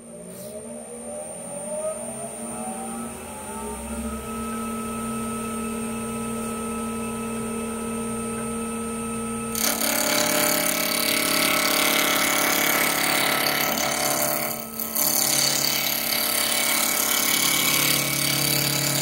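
Wood lathe motor spinning up with a rising whine, then running steadily at about 2,000 RPM. About halfway through, a gouge bites into the spinning padauk blank: a loud, continuous cutting and shaving noise as the handle is roughed out.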